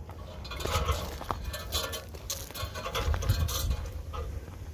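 Footsteps crunching and brushing through dry weeds and brittle brush: irregular crackles and snaps over a steady low rumble on the microphone.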